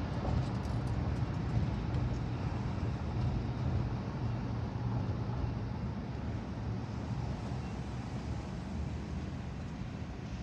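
Steady low rumble of vehicle and traffic noise heard from inside a car cabin as it nears a railroad crossing where a freight train is passing; no horn sounds.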